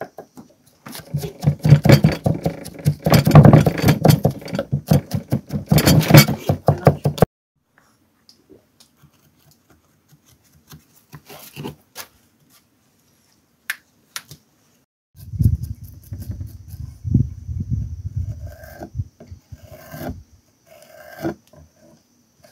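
Kitchen knife chopping onion on a thick wooden log-slice board: a fast, loud run of knife knocks on the wood. After a pause, a second, softer run of chopping as a red hot pepper is cut on the same board.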